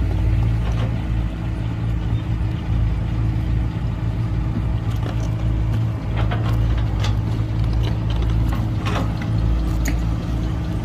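Heavy diesel engine of earthmoving machinery running steadily, with a few short knocks and clanks, more of them in the second half.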